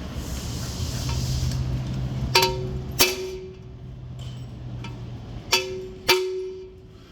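Metal struck four times in two pairs, each blow ringing briefly like struck steel, over a steady low machine hum that stops shortly before the last blow.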